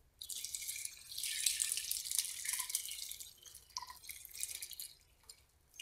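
Whey from curdled milk pouring out of a metal pan onto a muslin cloth in a strainer, splashing and trickling through as the paneer curds are strained. The pour starts just after the opening, is heaviest in the first half and tapers off toward the end.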